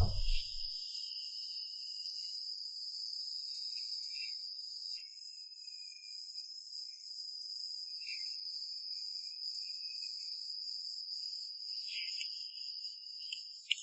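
Crickets chirping in a steady, continuous high trill with an even pulsing rhythm.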